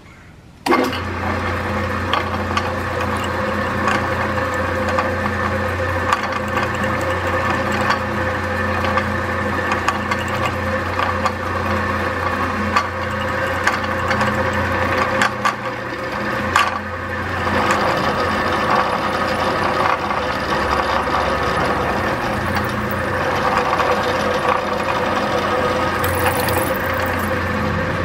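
Drill press starting up less than a second in, then running steadily with a low hum while a number 29 twist drill bores into a metal rod held in a V-block, drilling the hole for a number 0 taper pin. A couple of sharp clicks and a short dip in the sound come just past halfway.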